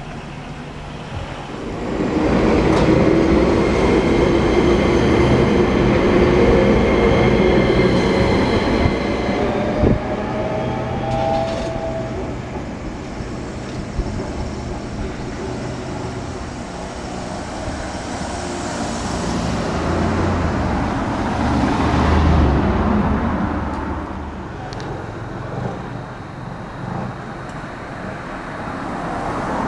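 Enoden (Enoshima Electric Railway) train running on street-running track and passing close by. Its motor whine rises in pitch over the first ten seconds or so as it pulls away, then the motor and wheel noise swells and fades as the train goes past.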